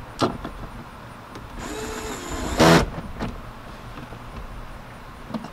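Cordless electric screwdriver whirring for about a second and then briefly loudly as a screw seats, fastening a van door trim panel, with a few sharp clicks of the plastic panel being handled before and after.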